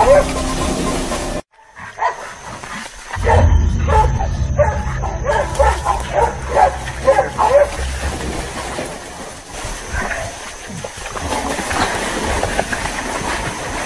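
Hog-hunting dogs barking in quick, repeated barks. The sound cuts out briefly about a second and a half in, then the barking resumes and dies down after about eight seconds.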